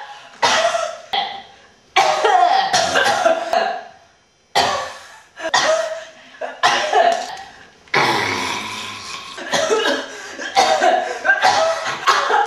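A person coughing over and over in loud, put-on coughs, about a dozen in a row: a deliberate cough to get someone's attention.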